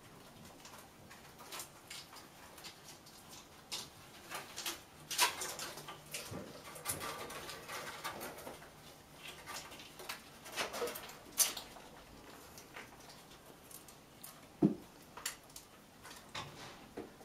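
Kittens climbing about a cat tree of bare natural branches: irregular scratches and clicks of claws gripping the bark, with a sharper knock a little before the end.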